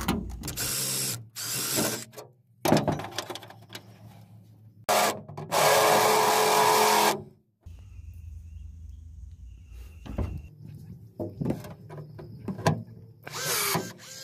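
Power drill running in short bursts, a couple of brief runs near the start and a longer run of about a second and a half in the middle, while angle aluminum ledgers are fastened inside a jon boat's bench, followed by quieter clicks and handling sounds.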